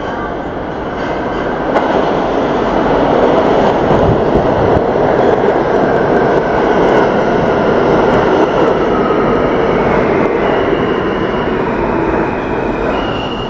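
New York City subway train running through the station right alongside: a loud, steady rush of wheels on rail that builds over the first two seconds. High squealing tones from the wheels come in about ten seconds in.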